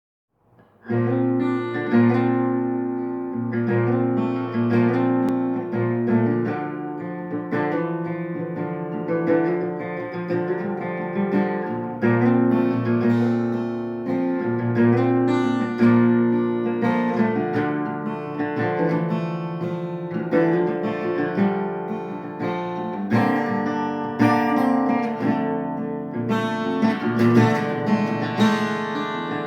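Acoustic guitar playing an instrumental piece of plucked and strummed chords, starting about a second in.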